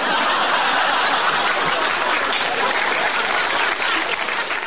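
Canned applause from a crowd clapping, starting suddenly and holding steady before dying away near the end.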